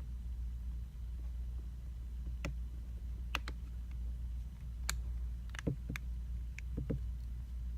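Light, scattered clicks and taps of small phone parts being handled and fitted during reassembly, several in quick pairs, over a steady low hum.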